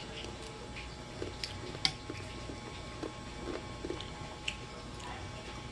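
Quiet chewing and mouth sounds of a person eating champorado (chocolate rice porridge), broken by a few short, sharp clicks of a spoon against the bowl.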